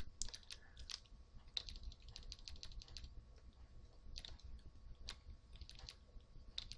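Faint, irregular clicking of computer keyboard keys being pressed.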